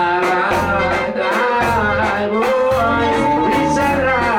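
Live reggae band playing a steady beat with bass and guitar, while a male vocalist sings into a handheld microphone.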